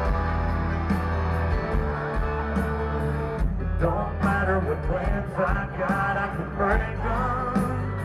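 Live country-rock band playing a song's intro at full volume, guitars, bass and cymbals, recorded close to a concert stage. About halfway through, a male lead vocal comes in singing over the band.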